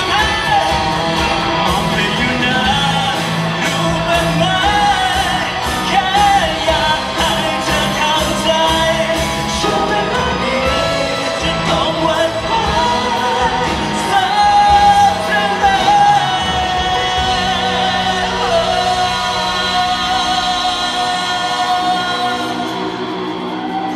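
Live band performing a Thai pop song, a lead vocal over the band's accompaniment with a steady drumbeat. About two-thirds of the way through, the drumbeat stops and a held chord rings on under the voice.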